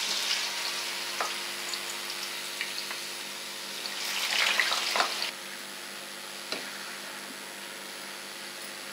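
Raw potato strips going into hot oil in a frying pan, sizzling and bubbling. A second handful about four seconds in makes the sizzle swell. After that it settles to a quieter steady sizzle.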